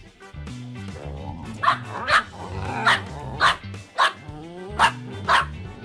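Dog barking during play: short, sharp barks about every half second, starting about a second and a half in, seven in all, over background music with a stepping bass line.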